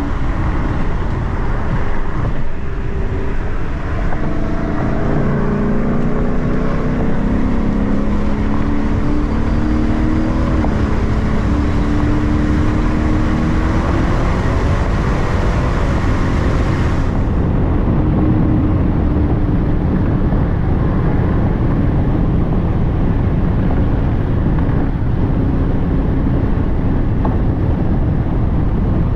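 2012 Hyundai Genesis R-Spec's E85-tuned 5.0-litre V8 heard from inside the cabin at highway speed. The engine note climbs steadily through the first half as the car pulls, then settles to a steadier cruise over constant road and wind noise.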